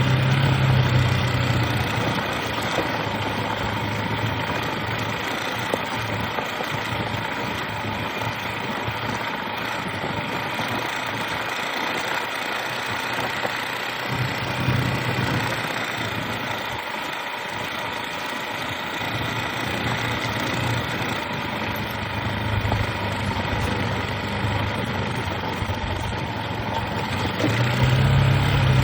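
A vehicle engine running steadily, its low hum louder near the start and again near the end.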